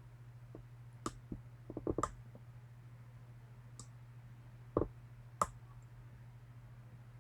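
Small metal clicks and taps of a lock pick working the key pins of a Medeco M3 cam lock: a single click about a second in, a quick run of clicks near two seconds, and two more sharp clicks a little after halfway, over a steady low hum.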